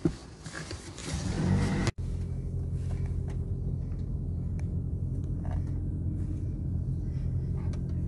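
Car running, heard from inside the cabin: a steady low rumble that settles in after a brief break about two seconds in, with a few faint clicks.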